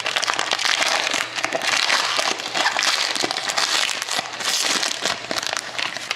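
Foil wrapper of a Panini Prime hockey card pack being torn open and crumpled by hand: a dense, continuous crinkling crackle that eases off at the end.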